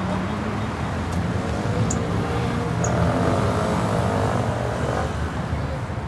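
Road traffic: cars driving through an intersection, engines and tyres running steadily, with one vehicle passing closest about three seconds in.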